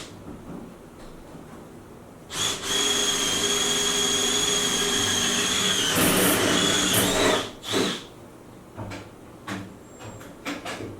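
A small electric motor whines steadily for about five seconds, its pitch sagging briefly near the end, then stops. A few light knocks and clicks follow.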